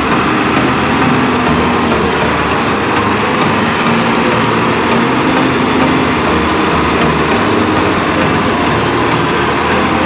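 XCMG LW300FN wheel loader's diesel engine running steadily under load as it scoops sand and drives with a full bucket.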